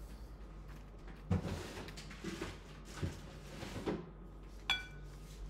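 Kitchen tongs picking food out of a paper-towel-lined ceramic bowl: paper rustling and a few soft knocks, then one ringing clink of the tongs against the bowl near the end.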